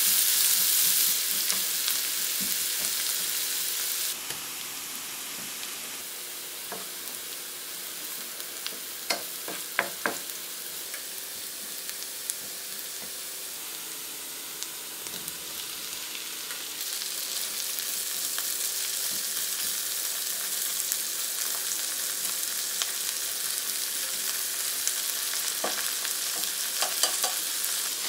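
Diced onion sizzling in oil in a frying pan as it is stirred with a wooden spatula, a steady hiss with a few light clicks. The sizzle drops a little about four seconds in and grows louder again in the second half.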